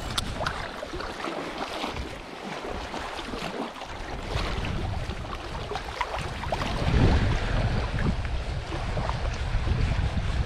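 Small waves lapping and splashing against shore rocks, with wind buffeting the microphone and gusting louder a little past halfway.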